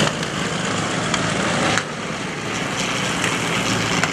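P-40 Warhawk fighter's liquid-cooled V-12 engine and propeller in flight, a steady drone that dips slightly about two seconds in.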